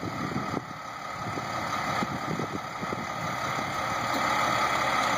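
Flatbed tow truck's engine running steadily at idle, a low rumble under a rushing hiss that grows slowly louder.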